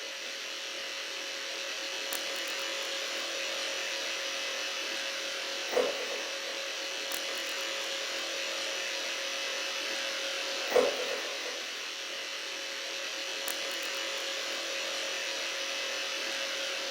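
A steady buzzing hum from a small motor or machine, with one constant tone. A short knock comes about every five seconds, and there are fainter ticks in between.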